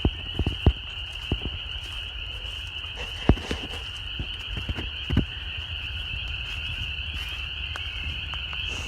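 Dense chorus of frogs calling all at once, a steady high-pitched shrill, with a few scattered knocks and crunches in the first half.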